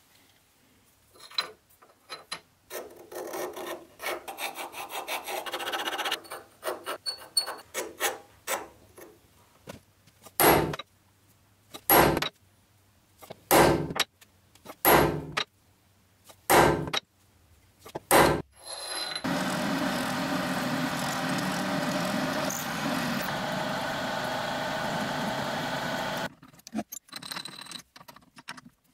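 Scraping and rasping of metal on a small steel bar for several seconds. Then a hammer strikes six sharp blows about a second and a half apart, as when punch-marking steel. After that a drill press motor runs steadily for about seven seconds, and a few light clicks follow near the end.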